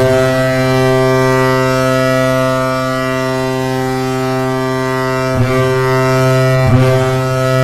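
The Colorado Avalanche's hockey goal horn blowing one long, loud, low blast, briefly broken twice in the last few seconds.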